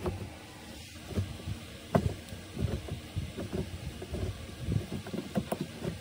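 Manual gear lever of a 2019 Toyota Corolla hatchback, fitted with a Scion tC short shifter, being worked through the gates: a string of short, irregular knocks and clicks, the sharpest about two seconds in.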